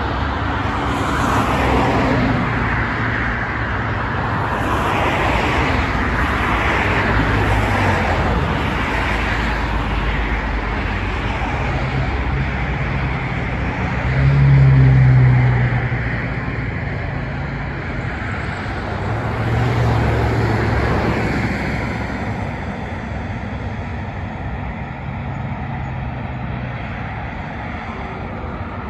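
Road traffic: cars passing on a nearby street in a steady rumble. One passes louder about halfway through, and another a few seconds later.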